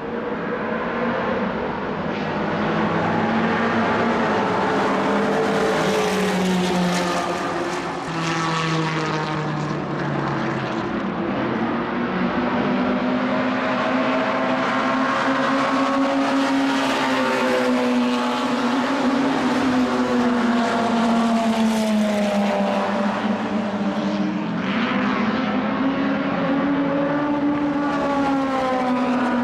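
1960s racing car engine running hard on track, its pitch rising and falling again and again through the laps.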